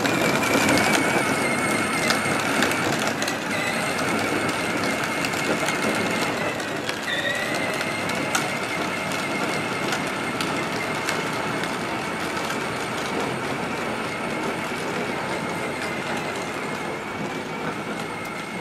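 Battery-powered John Deere Gator children's ride-on toy driving across asphalt: a steady high electric-motor whine over the rolling noise of its plastic wheels on the pavement. The whine dips in pitch briefly about seven seconds in, then recovers.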